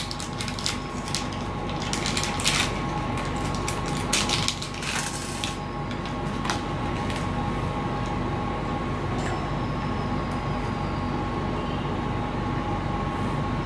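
Clicks and rustles of small parts and wires being handled on a workbench, clustered in the first five seconds or so with a few single clicks later. Under them runs a steady room hum with a faint high whine.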